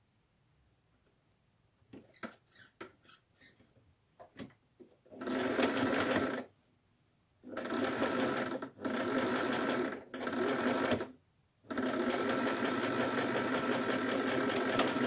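Domestic electric sewing machine stitching a patchwork seam in five short runs, stopping and starting between them, the last and longest about three seconds. A few light clicks come before the first run as the fabric is set under the foot.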